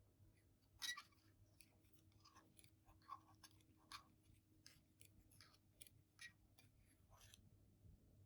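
Faint eating sounds: scattered soft clicks and scrapes of a utensil against a bowl of sticky natto pasta, the most distinct about a second in, with quiet chewing.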